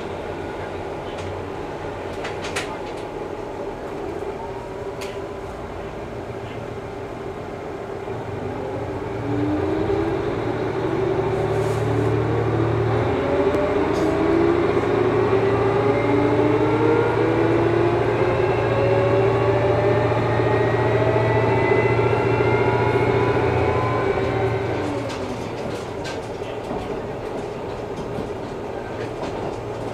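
Cabin noise inside a JR KiHa 11 diesel railcar under way: a steady low rumble, then from about nine seconds in the diesel engine drone grows louder and climbs steadily in pitch for some fifteen seconds as the railcar works harder, before it eases off and the noise drops back near the end.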